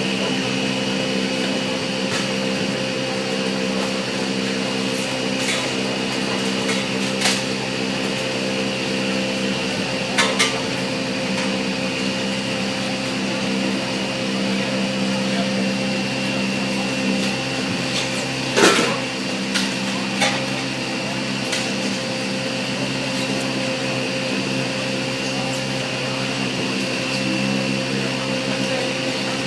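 A motor-driven machine running at a steady, unchanging hum, with a few sharp metallic knocks of tools, the loudest about two-thirds of the way through.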